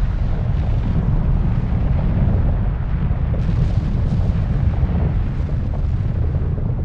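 Volcanic eruption sound effect: a steady, deep rumble with faint crackling above it, standing for the steam explosion of rising magma meeting groundwater.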